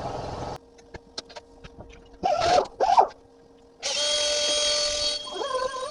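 A handheld power tool runs with a steady whine for about a second and a half, preceded by a few light clicks and taps. Short voice-like sounds come just before it and again near the end.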